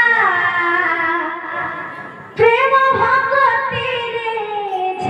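A young woman singing an Odia kirtan through a microphone: long held, sliding melodic phrases, one fading out and a new phrase starting about two and a half seconds in.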